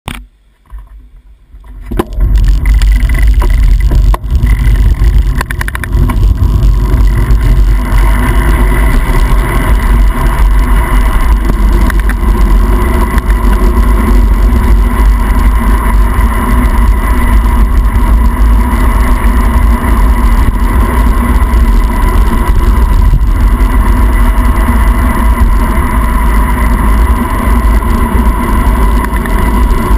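Heavy wind rushing over the camera microphone while descending at speed on a wet road, with tyre hiss on the wet surface; it starts abruptly about two seconds in and stays loud and steady.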